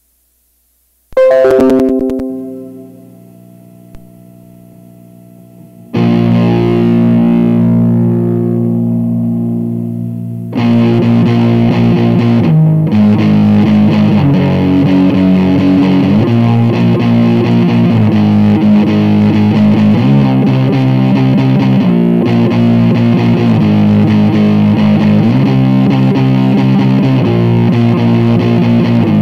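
Distorted electric guitar: a chord struck about a second in and left to ring out, a second chord hit about six seconds in and held as it fades, then continuous riffing with regular chord changes from about ten seconds in.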